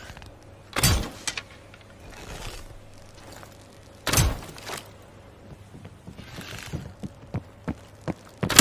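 A bow shot twice, about three seconds apart: each shot is a sharp string slap with a low thud, followed by lighter knocks within half a second. Several light clicks and taps of handling follow near the end.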